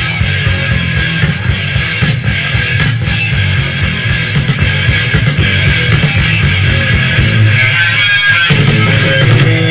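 Live rock band playing an instrumental passage: electric guitars over bass guitar and drums.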